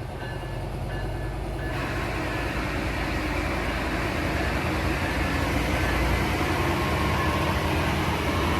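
Amtrak passenger train departing and coming closer: a diesel locomotive's low rumble with wheel and rail noise, growing steadily louder, with a broad rushing noise spreading in about two seconds in.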